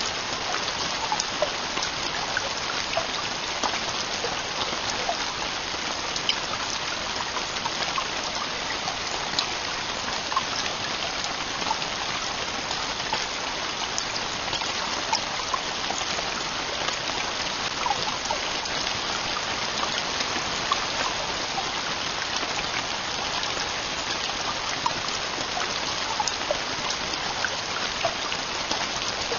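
Heavy rain falling steadily, an even hiss dotted with the ticks of individual drops hitting.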